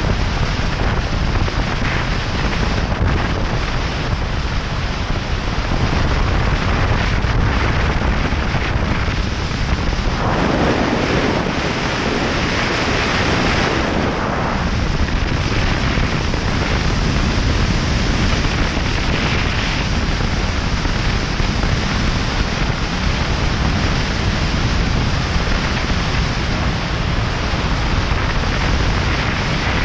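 Wind rushing over the microphone of a camera on a moving motorcycle: a loud, steady roar of wind noise that swells for a few seconds about ten seconds in.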